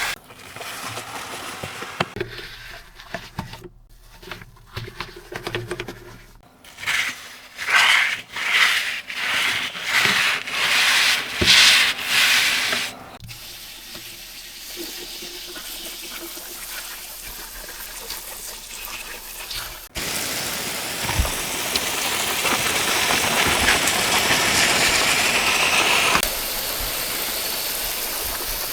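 Keyboard parts being scrubbed with a brush: scratchy rubbing, then a run of about eight loud strokes in quick succession. In the second half this gives way to a steady rush of running water, loudest from about twenty seconds in, as the keycaps are washed.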